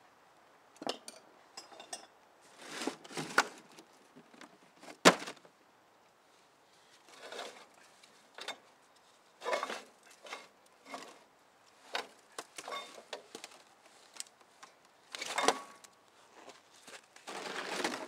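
Steel track links of a Magna Trac mini bulldozer clinking and rattling as the fully slackened track is worked off its sprockets by hand. Irregular clanks and short clattering bursts, with one sharp metal knock about five seconds in.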